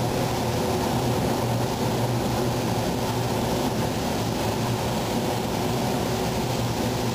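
Steady rushing air noise with a low hum, unchanging throughout: a gravity-feed automotive paint spray gun running on compressed air in a spray booth with its ventilation going.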